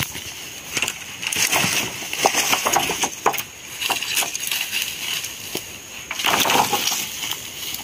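Cut wooden poles knocking and clattering against each other as they are handled and laid on a pile, with rustling and crunching through dry leaf litter and undergrowth. The clacks come irregularly, and a longer, louder stretch of rustling and knocking comes near the end.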